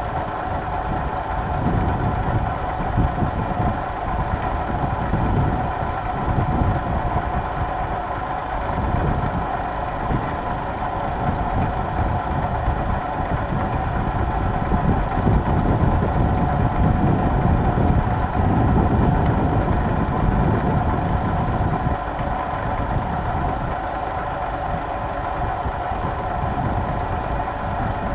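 Tractor engine running steadily at a constant pitch while pulling a plough, with an uneven low rumble that swells and fades underneath.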